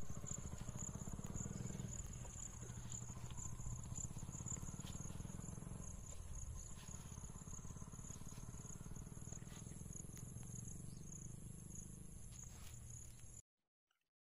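Insects chirring in a steady high-pitched drone over a low rumble, cutting off suddenly near the end.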